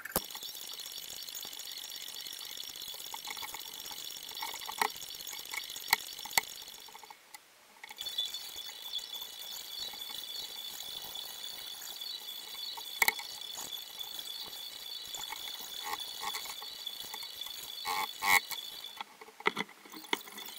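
Hand tools clicking and tapping against wood and the workbench, scattered light knocks over a steady high hiss.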